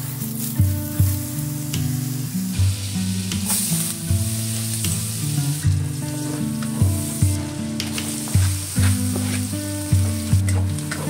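Butter, then minced garlic and sliced onion, sizzling and frying in a wok while a spatula stirs. Soft guitar music plays underneath.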